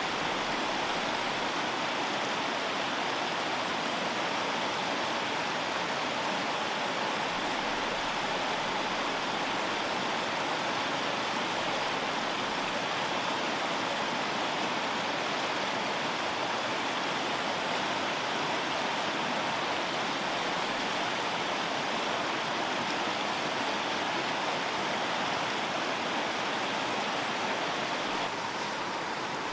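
A fast, shallow river running over rocks in rapids, a steady rush of water.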